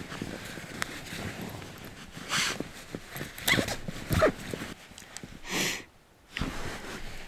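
Rustling of a puffy sleeping bag and bedding as a person settles down into it, with several louder swishes of the fabric.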